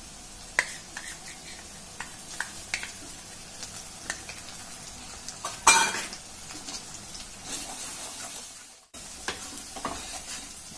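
Onion and spice masala sizzling in hot mustard oil in a metal kadai while a metal spatula stirs it, scraping and clicking against the pan. The loudest scrape comes about halfway through, and the sound cuts out for a moment a little before the end.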